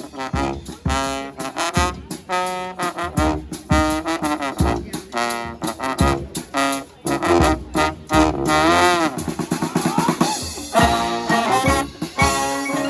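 Street brass band playing live: horns (trombone, trumpet, saxophone) in short, punchy notes in a quick rhythm over drums, with a run of sliding, bending horn notes about nine seconds in.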